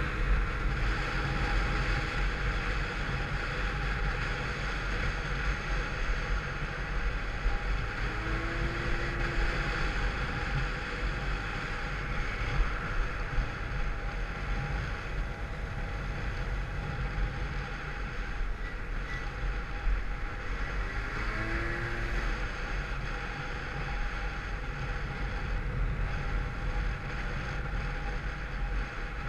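Peugeot Vivacity 50cc scooter engine running steadily while riding, with heavy wind noise on the microphone. The scooter is derestricted through its variator and changed rollers.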